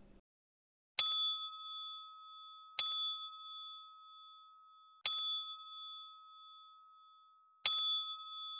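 A bell sound effect dinging four times, roughly two to two and a half seconds apart, each strike ringing out with a clear high tone that fades slowly.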